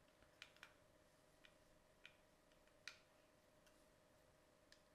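Near silence with a handful of faint, irregular clicks and taps from handling a Raspberry Pi 2 in its FLIRC case and its small case screws, over a faint steady hum.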